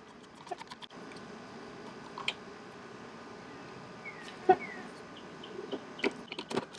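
Phillips screwdriver backing screws out of a tail light's mounting, heard as scattered light clicks and scrapes of metal on plastic, with one sharper click about four and a half seconds in and a couple of faint short squeaks.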